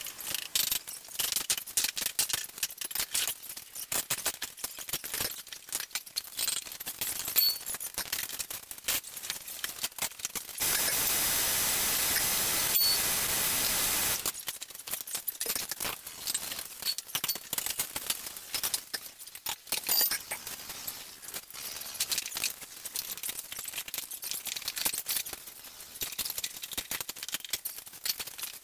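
Hand work breaking down truck tires: tire irons and tools clinking and knocking irregularly against the tires and aluminum rims. Air hisses steadily for about four seconds near the middle.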